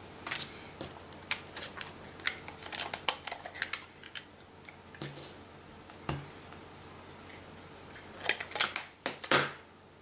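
Light clicks, taps and rattles of hard plastic craft supplies being handled on a desk: a clear acrylic stamp block and a plastic case picked up and set down. The clicks come in a quick run over the first few seconds, a single knock about six seconds in, and another cluster near the end.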